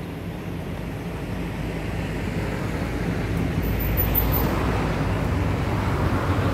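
A motor vehicle's engine running with a steady low hum, growing louder about three seconds in.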